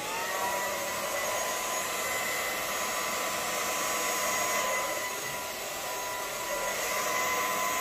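Hair dryer blowing air onto wet acrylic paint to push it across a canvas: a steady motor whine over a rush of air, just reaching full speed as it starts.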